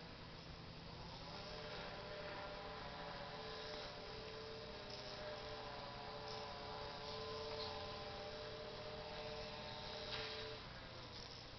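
A steady hum made of several tones, dipping briefly in pitch near the start and again near the end, with a few faint clicks in between.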